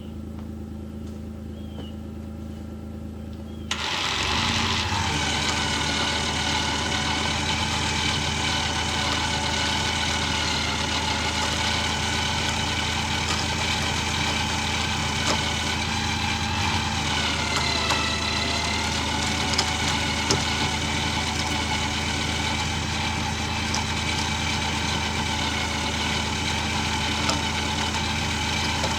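Kawasaki Mule utility vehicle engine idling low, then throttled up about four seconds in and running steadily at higher revs, as if pulling a heavy log, with a brief dip in pitch partway through before it recovers.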